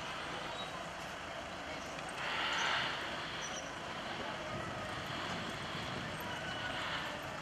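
Dacia Logan police car driving slowly past at close range, its engine and tyres on a wet road, swelling louder about two to three seconds in.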